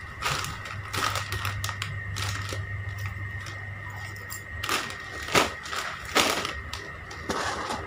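Plastic snack packets crinkling and rustling as they are handled, with a few louder crackles about five and six seconds in. A steady low hum runs underneath.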